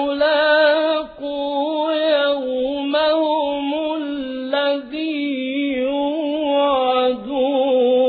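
A man reciting the Quran in a melodic chant, holding long notes with wavering, ornamented turns of pitch and breaking briefly a few times between phrases.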